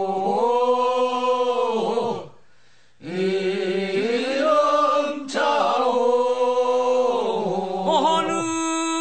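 Korean funeral bier-bearers' song (sangyeo sori, a mourning song) of Yeongcheon, North Gyeongsang: slow chanted singing in long held notes that slide at their ends, with a short break about two seconds in before the singing resumes.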